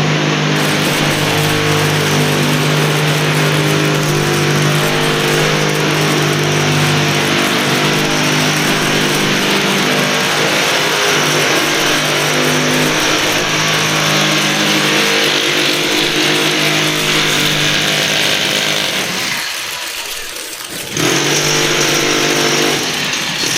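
Electric drill boring holes into a masonry wall on the floor above, a loud steady motor whine with a grinding hiss; it stops for about two seconds near the end, then starts again.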